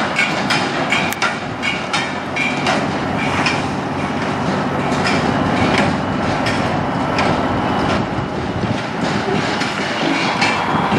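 Semi tractor's diesel engine running at low speed as it pulls a metal livestock trailer at a crawl, with frequent irregular metallic clanks and rattles from the rig.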